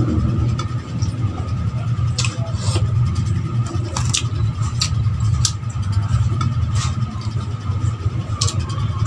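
Eating sounds: a spoon and fork clinking on a plate several times at irregular intervals while food is chewed, over a steady low hum.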